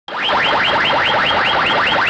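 A rapid electronic chirp effect, about five quick upward sweeps a second, each tipping over at the top, blasted from a DJ loudspeaker stack. It starts abruptly just after the start.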